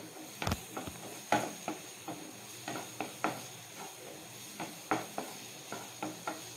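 Wooden spatula stirring chopped capsicum and onion in a nonstick frying pan, making irregular scrapes and taps against the pan, over a faint sizzle of the vegetables frying in oil.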